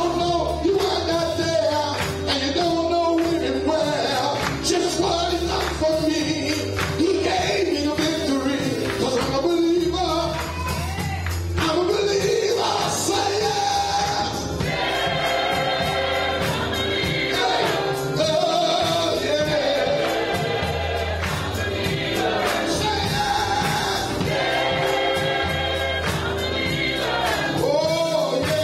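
Live gospel music: a choir singing with band accompaniment, a low bass line and drums or tambourine keeping a steady beat.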